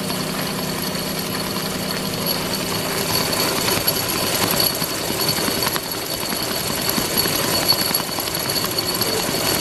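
Steady running noise of workshop machinery with a constant high-pitched whine; a low hum underneath stops about three seconds in.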